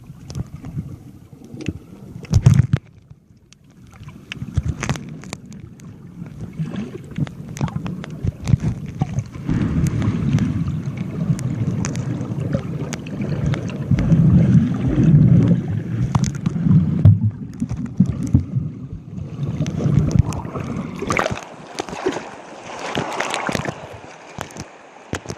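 Muffled sloshing and gurgling of sea water around a phone sealed in a waterproof pouch, with many small knocks and crackles against the pouch. The water noise is deep and swells in the middle, then turns brighter and splashier near the end.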